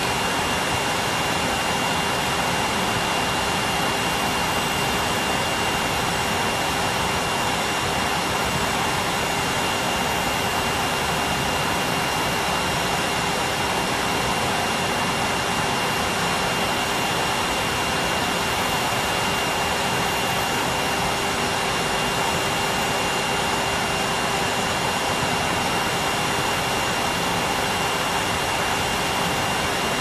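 Numatic Henry canister vacuum cleaner running steadily with no hose fitted: an even rush of air with a steady high whine and a lower hum over it.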